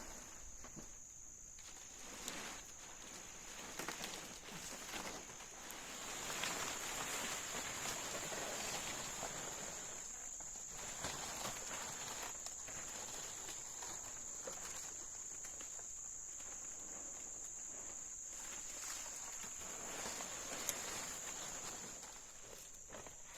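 Insects droning in one steady high tone, under irregular rustling and scuffing like footsteps on ground litter.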